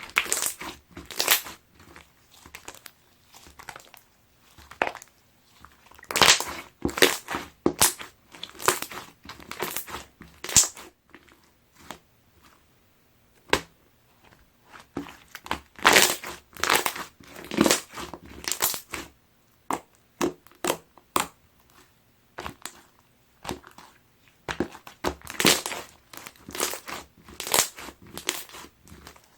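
Clear jelly slime being squeezed and worked by hand: irregular squishes and sharp pops, with brief pauses between them.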